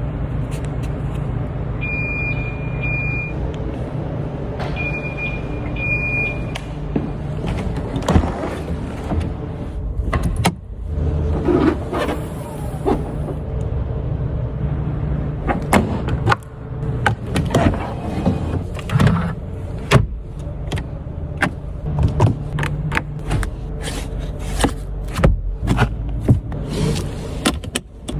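Ferrari 12 Cilindri's 6.5-litre V12 idling steadily, with two pairs of short high beeps in the first few seconds. From about eight seconds in, a run of irregular sharp cracks and short blips joins it.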